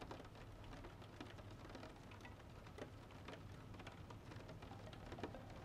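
Faint rain pattering on a car, many small scattered drop ticks over an even hiss, with a low steady hum underneath.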